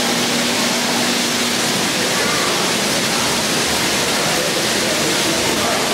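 Steady rushing hiss of hundreds of die-cast toy cars rolling down the tracks of the Metropolis II kinetic sculpture while conveyor lifts carry more cars up, with a steady hum that drops out about a second and a half in.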